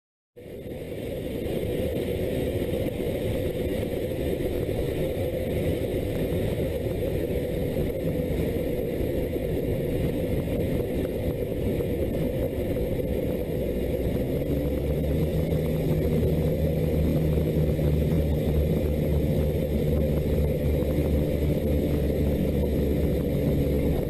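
Steady engine and air noise inside the cockpit of a small aircraft, a dense low drone. About halfway through, a steadier hum with distinct held tones comes in under it.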